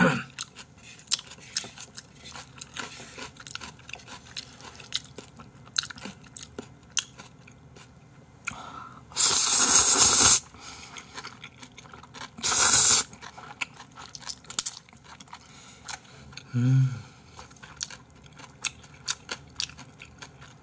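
A person eating jjapaghetti black-bean noodles close to the microphone: wet chewing and mouth clicks throughout, with two loud slurps of noodles about nine and twelve seconds in.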